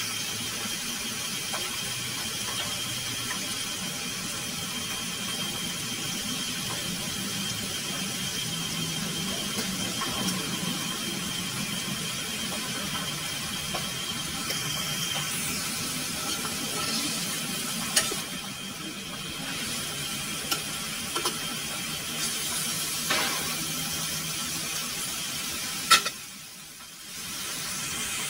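Chicken pieces sizzling in an aluminium wok over a portable gas burner, a steady hiss. A few sharp clicks come in the second half, and the sound dips briefly near the end.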